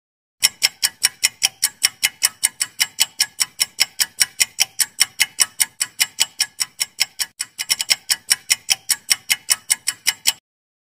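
Clock-ticking sound effect of a quiz countdown timer: fast, even ticks for about ten seconds, with a brief stumble in the rhythm about two-thirds through, then stopping suddenly.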